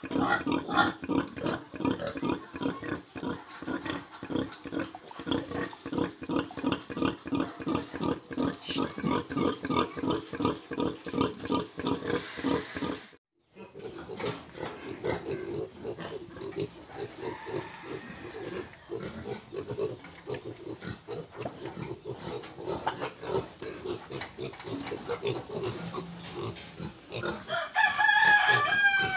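A nursing sow gives quick, regular grunts, several a second, while her piglets suckle. After a break, piglets grunt and jostle at their feed, and near the end a loud pig squeal falls in pitch.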